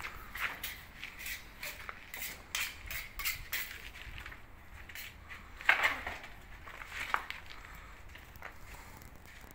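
Metal putty knife scraping and tapping against a gypsum plaster panel in short, irregular strokes, with one louder scrape just past halfway.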